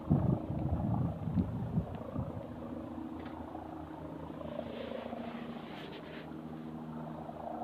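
Helicopter rotor beating steadily, with a steady engine hum under it. Louder rough bursts of noise come in the first couple of seconds.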